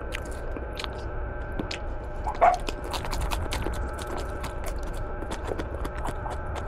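Close-up mouth sounds of a person chewing alugbati (Malabar spinach) leaves: many small wet clicks and smacks, with one brief louder pitched sound about two and a half seconds in.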